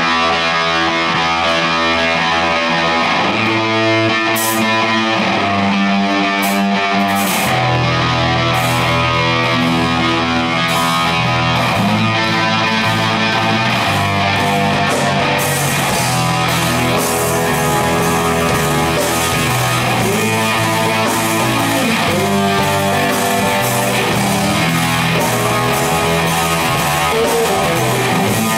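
A live rock band playing loud and steady, with amplified electric guitars, an acoustic guitar and drums with cymbal hits.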